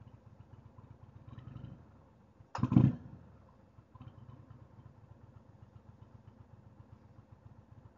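Motorcycle V-twin idling with a low, steady rumble, and one short, loud sound about two and a half seconds in.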